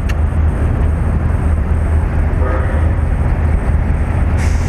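Steady low rumble and background noise picked up by the SJCAM SJ7 Star's built-in microphone, with no external mic fitted. A faint, brief voice-like sound comes through about two and a half seconds in.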